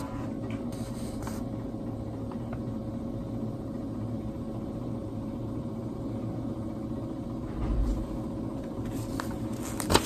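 Steady low hum of room machinery, with a soft low bump about three-quarters of the way through and paper rustling at the very end as a printed sheet is handled.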